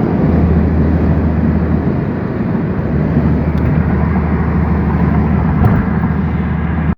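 Car driving at highway speed, about 70 mph: steady road and wind noise with a low, even drone.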